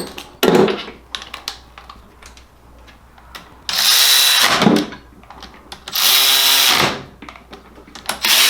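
Handheld power drill driving bolts into a transmission case: short bursts of about a second each, with a whine whose pitch falls as the motor stops, the third starting near the end. A few light clicks and knocks of metal parts come first.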